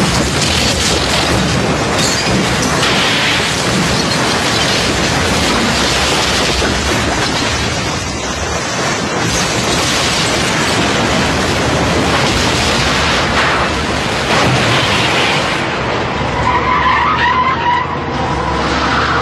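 Film sound effects of a building being blown up and collapsing: a long, dense rumble of crashing, falling debris. A wavering tone comes in near the end.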